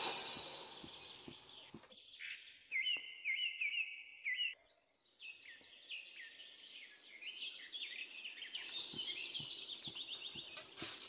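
Birds chirping: a short run of repeated chirps a few seconds in, then a quick series of falling chirps through the second half. Near the start, a brief hiss of granulated sugar poured into water in a steel bowl.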